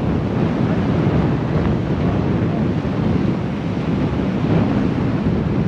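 Wind buffeting the microphone as a steady low rumble, with surf washing beneath it.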